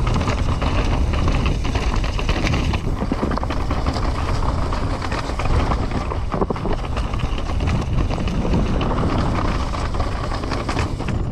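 Trek Slash 9.9 enduro mountain bike running down a rough trail: tyres rolling over dirt and rocks, with frequent short knocks and the bike rattling, under wind rushing on the microphone.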